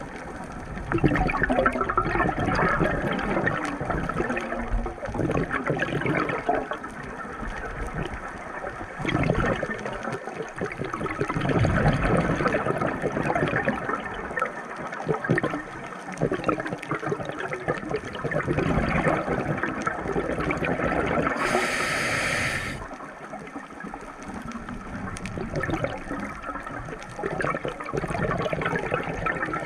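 Water sloshing and gurgling in uneven surges.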